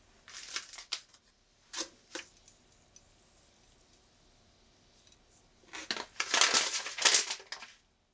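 Dry rustling and crinkling while sesame seeds and chopped green onion are scattered over prepared side dishes: brief bursts with two light clicks about two seconds in, then a longer, louder spell of rustling near the end.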